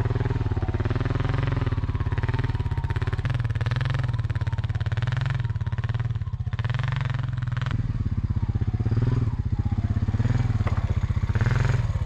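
ATV (four-wheeler) engine running steadily as it is ridden along at low speed.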